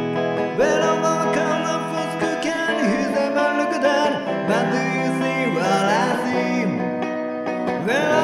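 Gretsch electric guitar picked quickly in an instrumental break, with many notes bending and sliding in pitch over a steady low accompaniment.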